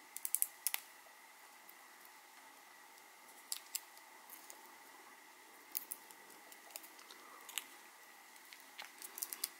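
Fingernails picking and peeling tape and plastic wrap off a small lithium-polymer pouch cell: faint, scattered clicks and crinkles in a few short clusters.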